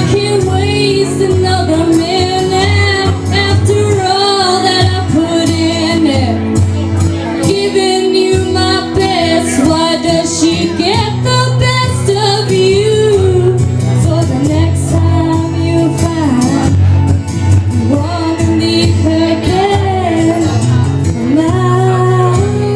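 A woman singing a slow country ballad over a karaoke backing track, holding long notes with a wavering vibrato.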